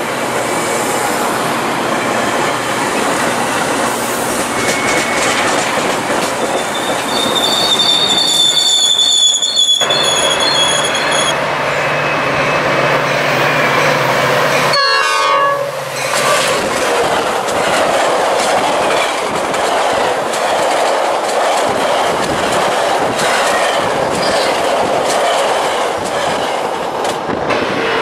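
Metra bi-level commuter cars rolling past close by with wheel-on-rail clatter and a high-pitched wheel squeal for a few seconds. This gives way to the steady running noise of another commuter train approaching.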